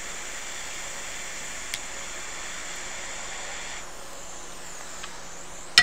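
Hot air rework station blowing a steady hiss of air while the shorted capacitors are lifted off the logic board; the airflow cuts off about four seconds in, leaving a fainter hiss, and a sharp click comes at the very end.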